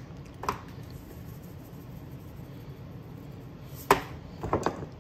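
Kitchen handling sounds as a bowl of grits is served and seasoned: a faint knock about half a second in, then a sharp click about four seconds in followed by a few quicker light clicks, with low room tone between.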